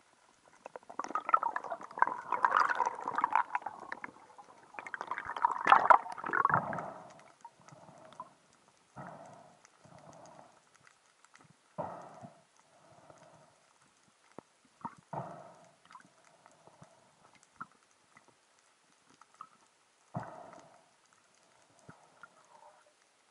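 Muffled underwater handling noise picked up by a submerged camera: two longer stretches of rumbling and scraping in the first seven seconds, then scattered short knocks and rustles, as a diver works his speargun and shooting line and brings in a speared fish.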